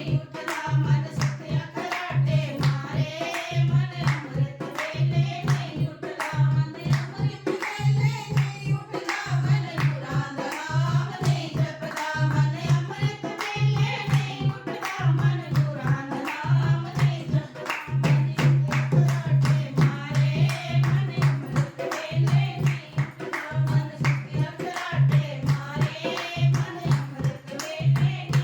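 Devotional Punjabi satsang bhajan: voices singing a melody over a steady drum beat, with rhythmic hand clapping keeping time.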